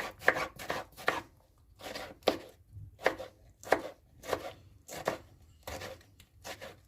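Kitchen knife dicing tomatoes on a cutting board: a run of uneven chopping strokes, about two a second.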